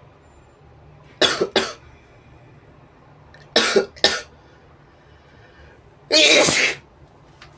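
A person sneezing repeatedly: a quick pair of explosive bursts, a second cluster about two seconds later, then a longer, stronger one near the end.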